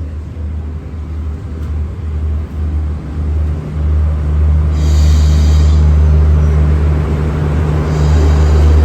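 Diesel train pulling into the platform: a deep engine rumble that grows louder about four seconds in, with short hisses from the brakes about five seconds in and again near the end.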